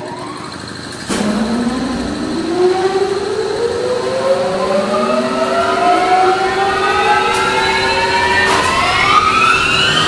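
Intro sound effect: a long rising whine, several pitches climbing together from low to high over about nine seconds, starting about a second in over a steady hum.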